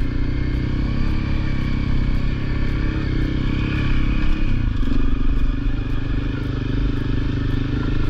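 Honda CRF250L's single-cylinder four-stroke engine running steadily at low speed while ridden, with its note dipping a little about halfway through.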